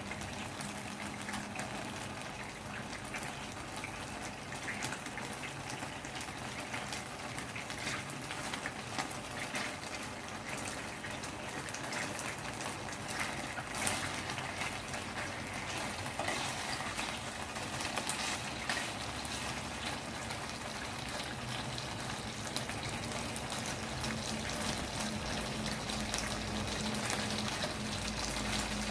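Food sizzling in a hot pan: a steady frying sound with many small crackles.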